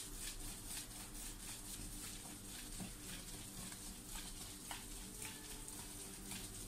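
Faint crinkling and rustling of plastic cling film as a wrapped raw chicken roulade is rolled back and forth on a countertop, in many small irregular crackles, over a steady low hum.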